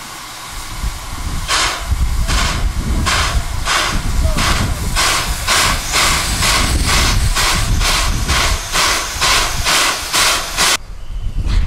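Steam locomotive's exhaust chuffing as it gets under way, the beats quickening from about one a second to about three a second over a low rumble, then cutting off suddenly near the end.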